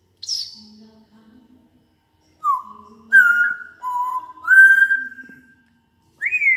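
African grey parrot whistling: a brief high chirp just after the start, then from about two and a half seconds a run of four clear whistled notes, some sliding before they hold steady. Another rising whistle comes near the end.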